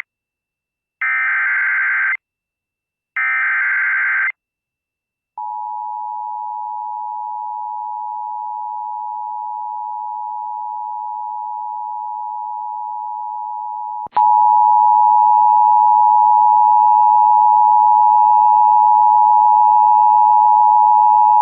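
Emergency Alert System header: three short, buzzy data bursts about a second apart, followed by the steady two-tone EAS attention signal. Two-thirds of the way through, the tone jumps louder and harsher and keeps going.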